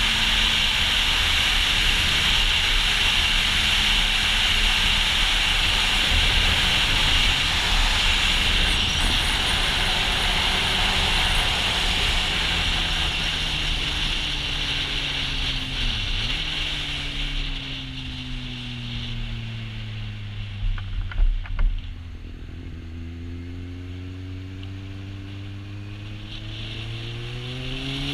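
Kawasaki Z800e inline-four with an Akrapovic exhaust running under way, buried in heavy wind noise on the camera mic. Past the middle the engine note falls slowly as the bike slows and the wind eases, with a few sharp knocks. Near the end the note rises again as it accelerates.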